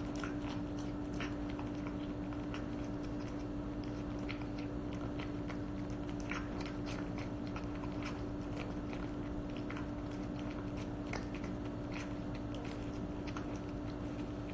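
A cat eating wet food from a stainless steel bowl: irregular wet chewing and lapping clicks, a few each second, over a steady low hum.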